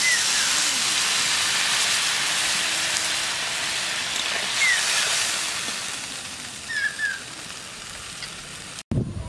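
Water poured into hot mustard oil in a wok of fried papaya, sizzling and hissing loudly at first and gradually dying down.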